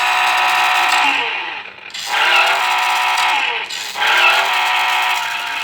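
Electronic engine sound effect from a 1990s Taiyo remote-control mini Suzuki toy car: a steady engine tone that twice cuts away and revs back up in a rising pitch, about two seconds apart.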